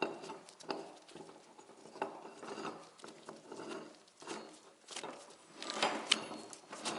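Metal parts of a mini tire changer being handled and fitted together: irregular clinks, knocks and scraping, with a part threaded on near the end.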